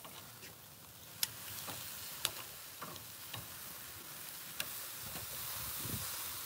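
Marinated meat sizzling on a barbecue grill, a steady hiss that grows a little louder after about a second. A few sharp clicks, about four, come from metal tongs as the pieces are turned.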